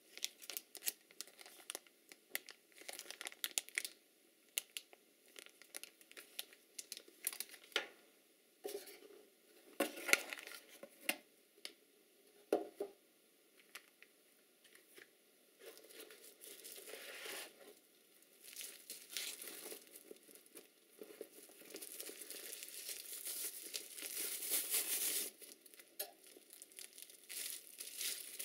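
Plastic packaging and bubble wrap crinkling as they are handled by hand, in many short, sharp crackles that grow denser and louder near the end.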